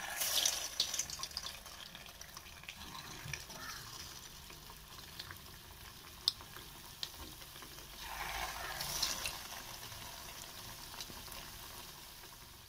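Stuffed bread unnakkaya, their shells dipped in water, deep-frying in hot oil in an aluminium kadai: the oil sizzles and crackles steadily, loudest as the first piece goes in at the start and swelling again around eight seconds. A single sharp tick a little past six seconds.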